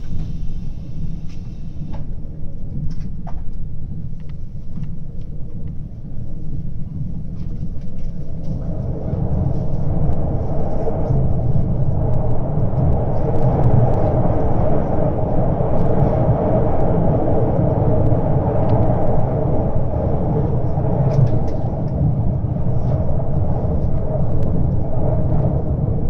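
Train running, heard from inside the carriage: a steady low rumble that grows louder and fuller from about eight seconds in, while the train crosses a steel truss bridge.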